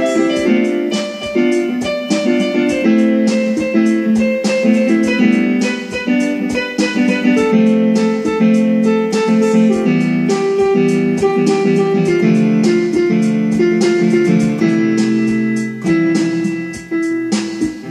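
Instrumental background music led by a plucked guitar, with notes picked in quick succession over held notes.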